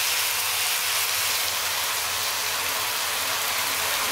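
Steady sizzling of chicken breasts, peppers and onions in a hot cast-iron Dutch oven as tomato passata is poured in to deglaze the pot.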